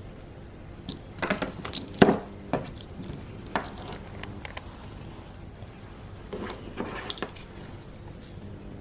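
Objects being handled: a scatter of light clinks and knocks, clustered about a second in and again near the end, the sharpest knock about two seconds in.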